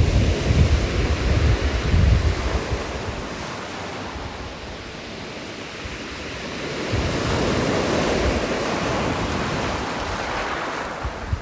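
Ocean waves breaking on a shore: a continuous wash of surf that eases off in the middle, then swells again as a wave comes in about seven seconds in.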